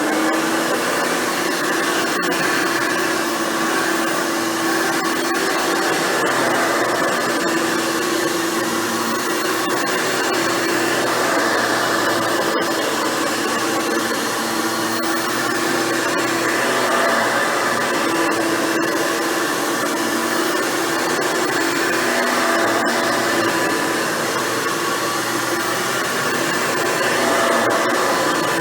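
Hoover Futura Dimension upright vacuum cleaner running while vacuuming, its 7-amp motor and seven-bladed fan giving a steady whine that wavers slightly.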